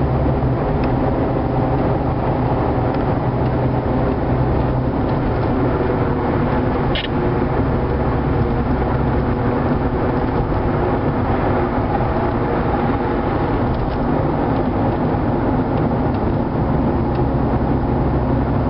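Car driving at highway speed, heard from inside the cabin: a steady mix of engine and tyre noise, with a brief click about seven seconds in.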